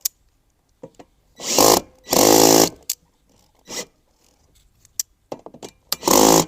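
Power drill driving in a bolt in three short bursts of motor whine, the longest about two seconds in, with small clicks and knocks of the parts being handled between them.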